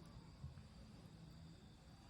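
Near silence: the faint low rumble of a wood fire burning in a Solo Stove, with one soft pop about half a second in.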